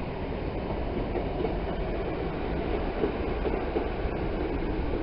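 Class 150 Sprinter diesel multiple unit running into the platform: a steady rumble of its underfloor diesel engines and wheels on the track.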